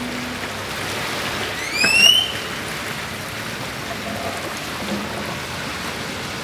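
Steady hiss of sea waves washing on a rocky shore, with one short rising whistle-like call about two seconds in. The last acoustic guitar note dies away at the very start.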